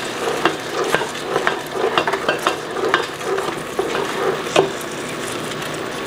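Wooden spatula stirring blueberries and sugar in an aluminium pot, knocking against the pot about twice a second, over the steady sizzle of the simmering syrup as the berries start to burst. The stirring stops a little before the end, leaving only the bubbling.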